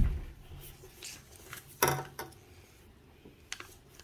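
Handling noises from molding clay with toy molds on a tabletop: a sharp knock at the start, another knock about two seconds in, and light taps and rubbing in between.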